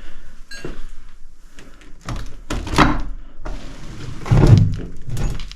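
A door being pushed and rattled: a rough scrape about two seconds in, then a heavy thunk about four seconds in as it stops against the boarding fixed over it.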